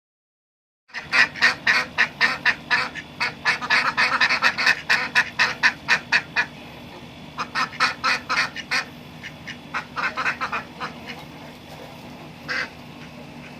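Ducks quacking in rapid runs of short calls, several a second, starting about a second in, then in shorter bursts, with a lone quack near the end.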